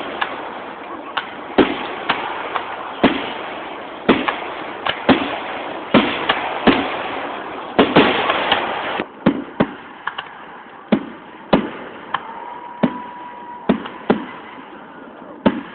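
Fireworks going off: a string of sharp bangs, one or two a second, over a dense crackling hiss. The crackle drops away about nine seconds in, while separate bangs keep coming.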